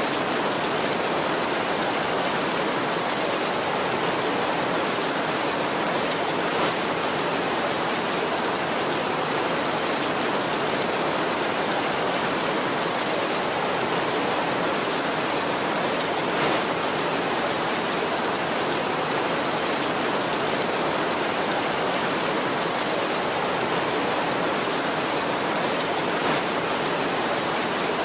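Heavy rain falling steadily, an even hiss, with a few brief slightly louder ticks about ten seconds apart.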